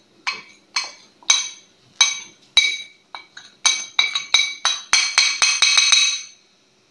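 Glass bowl knocked repeatedly against a spice grinder jar to empty spices into it: a run of ringing glass clinks, speeding up after about four seconds and stopping about six seconds in.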